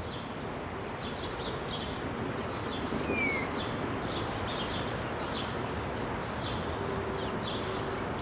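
Outdoor street ambience: a steady background hiss with birds giving short high chirps again and again, about one or two a second.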